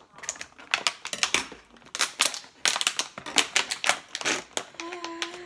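Thin plastic water bottles crackling and clicking as they are squeezed and pierced with scissors, a rapid, irregular run of sharp crinkles, really noisy. Near the end a voice holds a steady note.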